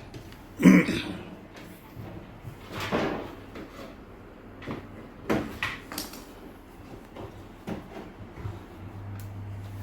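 Scattered knocks and clatters of parts being handled while the tumble dryer heater's electrical connector is worked loose, the loudest about a second in. A steady low hum starts near the end.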